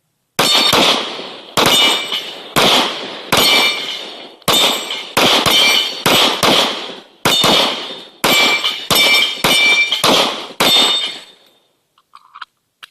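Rapid, uneven pistol fire from two Glocks, a .45 ACP Glock 30S and a .40 S&W Glock 23, about fifteen shots shooting down steel dueling-tree paddles. Each shot is followed by a ringing clang of struck steel. The firing starts about half a second in and stops about 11 seconds in.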